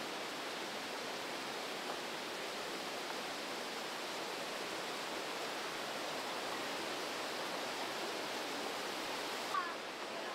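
Breitach river's white water rushing steadily through the narrow rock gorge, a constant even roar.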